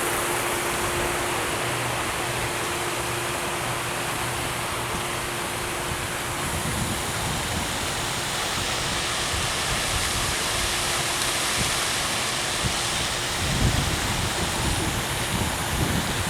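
A waterfall rushing in a steady, even roar of falling water, with a few low bumps on the microphone in the second half.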